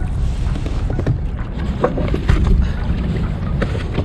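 Steady wind rumble on the microphone, with a few short splashes and knocks as a hooked blue catfish is brought alongside a kayak and netted.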